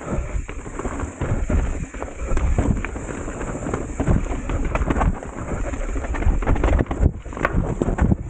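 Mountain bike riding fast down a rough, rocky and rooty dirt trail: tyres crunching over stones and roots, with frequent sharp knocks and rattles from the bike, over a steady low rumble of wind buffeting the microphone.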